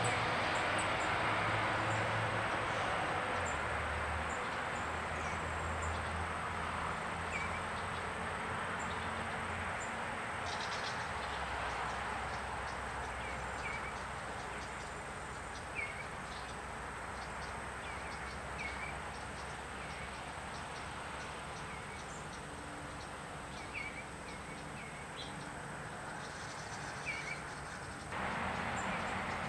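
Steady outdoor rushing noise with a low vehicle-like hum that fades over the first several seconds and swells again near the end, over which a small bird gives short chirps every second or two through the middle.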